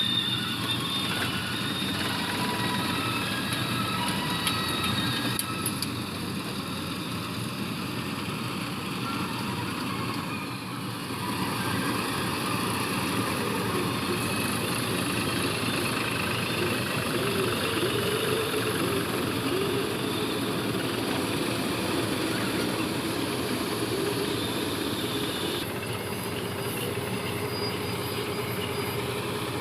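Diesel engines of heavy farm machinery, a combine harvester and a tractor, running steadily, with a brief dip about ten seconds in.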